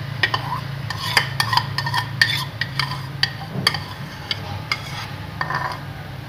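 Metal spoon clinking and scraping against a ceramic bowl while scooping thick yogurt out of it: irregular sharp taps, busiest between about one and two and a half seconds in, over a steady low hum.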